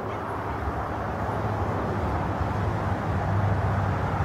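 MSR Pocket Rocket canister stove burning steadily under a stainless pot, heating water toward the boil.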